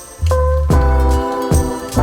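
Background music: a mellow instrumental passage with sustained pitched notes over a deep bass line that comes in about a quarter second in.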